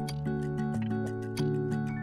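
Background music: soft held chords over a light, steady ticking beat.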